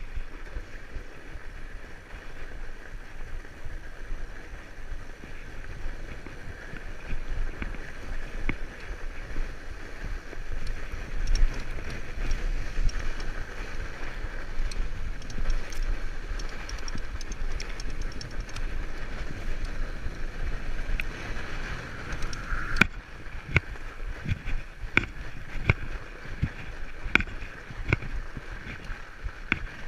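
Fatbike's wide tyres rolling over packed snow, with a low wind rumble on the microphone. From about two-thirds of the way in, frequent sharp clicks and knocks as the bike rattles over a bumpier stretch.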